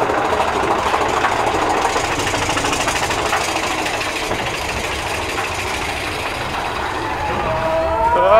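Big Thunder Mountain Railroad mine train running along its track: a steady rumble and rattle of the cars. It eases off a little through the middle and builds again near the end.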